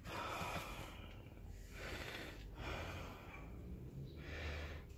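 A person breathing close to the microphone: several slow breaths, each a soft rush of air with short pauses between.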